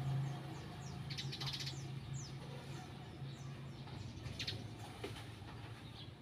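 Small birds chirping on and off in short, high, falling chirps, with a quick run of notes about a second in, over a faint steady low hum.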